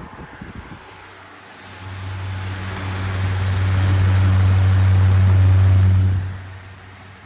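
JHE 12-inch louver box fan running on medium: a low steady motor hum and a rush of air swell over a few seconds, then drop off sharply about six seconds in. The blade seems somewhat out of balance.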